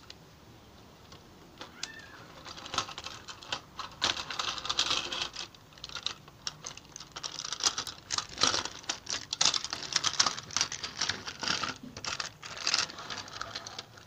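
Plastic toy track and toy trains being handled and moved about: irregular clicking and clattering that starts a couple of seconds in and stays busy to the end.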